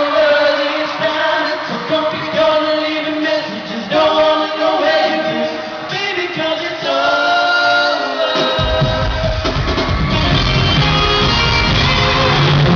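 Live pop song with a male singer holding long notes over the band, picked up in a big arena. About two thirds of the way through, a loud low rumble takes over beneath the music.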